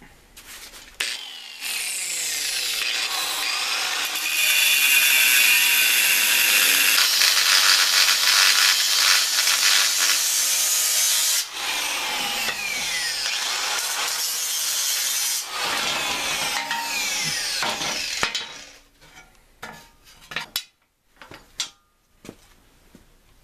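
Angle grinder with a cut-off wheel cutting through the steel engine-mount plate of a lawn tractor frame: it spins up about a second and a half in, gets louder and harsher about four seconds in, dips briefly twice, and stops about eighteen seconds in. A few knocks and clanks follow as the cut plate is handled.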